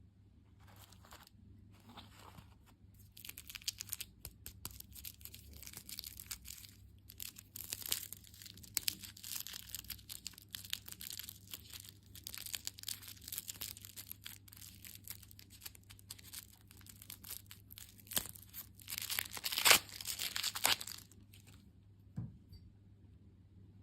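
Plastic candy wrapper crinkling and being torn open, a dense run of crackles with the loudest rip near the end.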